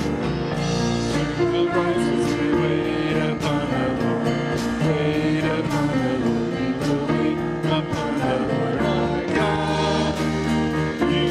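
Live church worship band: a group of singers singing a worship song together over guitars, with a steady beat.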